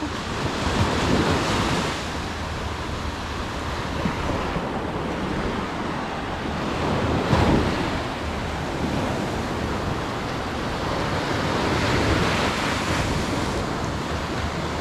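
Small waves breaking and washing up a sandy beach, with wind buffeting the microphone. The surf swells and fades a few times, and the loudest wash comes about halfway through.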